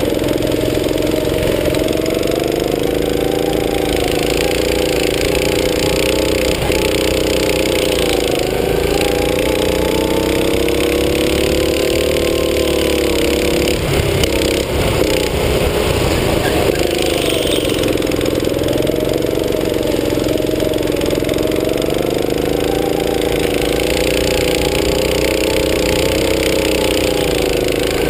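Go-kart's small petrol engine running under load, its pitch rising and falling every few seconds as the throttle is opened and lifted through the laps.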